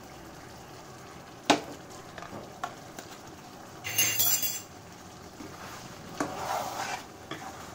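Metal spoon knocking and scraping in a kadai as yogurt is stirred into a chicken curry, with one sharp knock about a second and a half in and a short scraping rasp around four seconds in.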